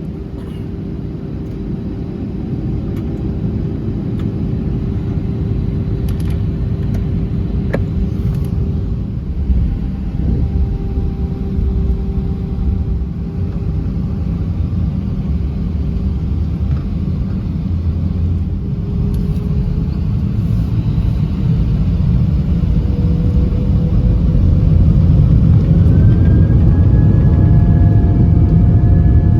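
Airbus A319 jet engines heard from inside the cabin, spooling up for the takeoff roll: a steady rumble that grows louder throughout, with whining tones rising in pitch near the end.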